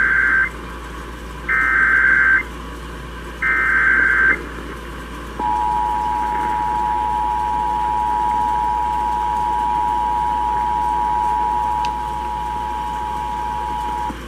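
Emergency Alert System activation on AM radio: three one-second bursts of SAME digital header tones, then about five seconds in the steady two-tone attention signal, held for about nine seconds. It signals a severe thunderstorm warning about to be read.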